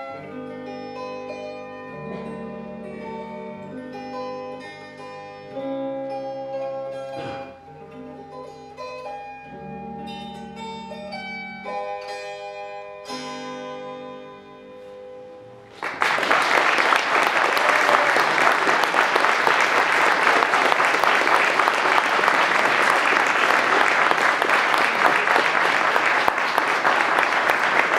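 Closing instrumental bars of a song: a melody of held notes over low sustained chords, dying away. A little over halfway through, an audience breaks into loud, steady applause.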